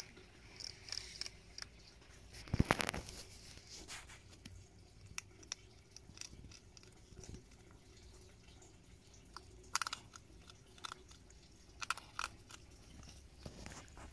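Hedgehogs chewing and crunching dry food from a bowl up close: irregular small crunches and clicks. There is a louder crackling burst a little under three seconds in, and more clusters of crunches near ten and twelve seconds.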